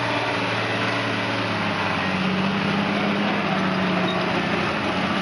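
Valtra tractor's diesel engine running under load as it pulls a cultivator through the soil. The engine note steps up in pitch about two seconds in.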